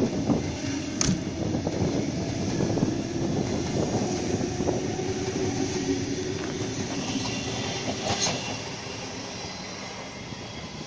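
Sydney Trains double-deck electric train running past and pulling away: a steady electric motor whine over the rumble of wheels on rail, with brief squeals about a second in and again near 8 seconds. The sound fades over the last couple of seconds as the train moves off.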